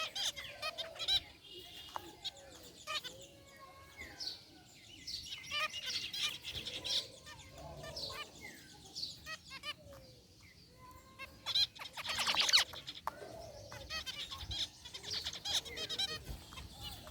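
Zebra finches calling: many short chirps and beeping calls, some gliding in pitch, overlapping through the whole stretch, with a louder, rapid burst about twelve seconds in.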